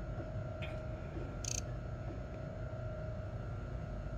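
Industrial sewing machine clutch motor running with no belt on: a steady hum with a faint steady tone, and a short faint hiss about one and a half seconds in.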